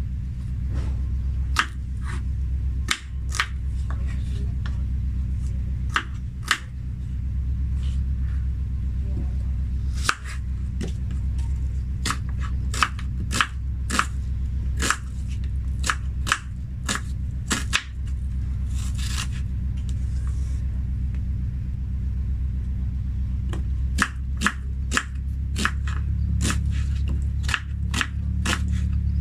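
Kitchen knife slicing vegetables on a cutting board: sharp, irregular clicks of the blade hitting the board, sometimes several a second, over a steady low hum.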